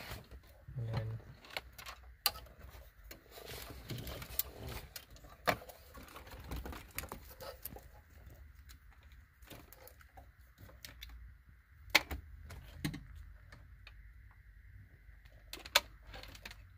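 Plastic wiring connectors and loose cables being handled and plugged together behind a car dashboard: scattered small clicks and rattles with a few sharper snaps, and a faint steady high tone through the second half.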